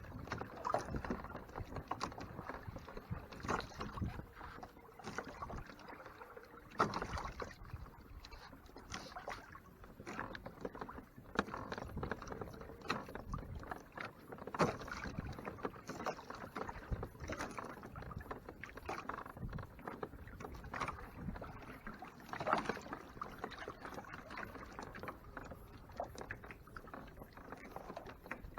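Lake water lapping and splashing against the hull of a Hobie Mirage Tandem Island sailing kayak under way, in irregular small slaps.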